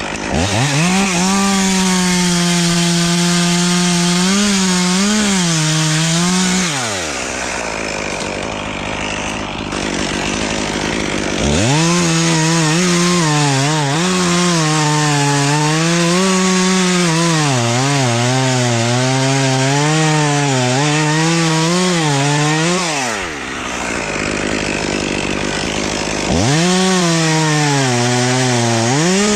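Two-stroke chainsaw revved up and cutting wood three times, its pitch wavering and sagging as the chain bites and recovering, then dropping off between cuts.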